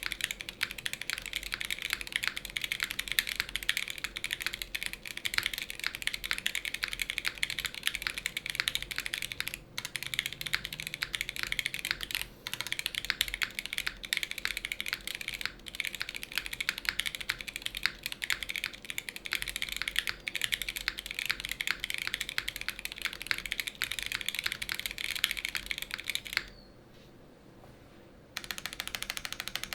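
Typing on a Mode Sonnet mechanical keyboard with lubed Boba U4T tactile switches, a POM plate and PBTFans PBT keycaps: a dense, continuous run of keystrokes that stops for about two seconds near the end, then starts again.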